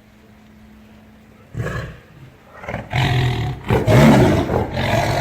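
Big cat growling: quiet at first, then a growl starts about a second and a half in, and deep, loud growls and roars follow from about three seconds in.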